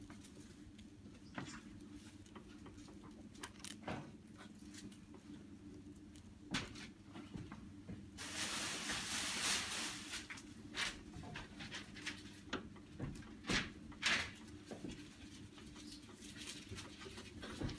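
Flat brush dabbing and stroking wet glue-varnish over paper laid on a wooden tabletop: scattered soft taps and scrapes, with a longer papery rustle lasting a couple of seconds about eight seconds in, over a low steady hum.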